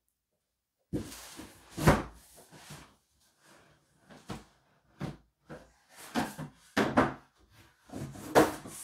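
Cardboard gift box being handled: a series of knocks and scrapes as the box is pulled across and its lid lifted off and set down. The loudest knocks come about two seconds in and near the end.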